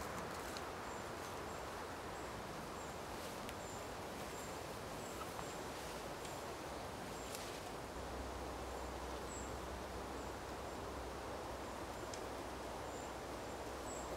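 Steady woodland ambience: an even hiss of outdoor air, with very high, thin short chirps repeating about once or twice a second and a few faint clicks. A low rumble joins about eight seconds in.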